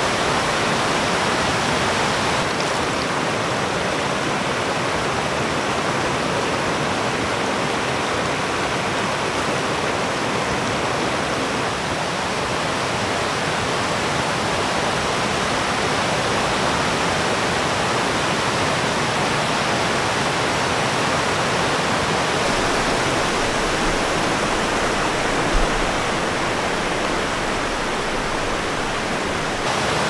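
Rain-swollen mountain stream rushing over rocks and rapids: a steady, even roar of white water, with one brief low thump near the end.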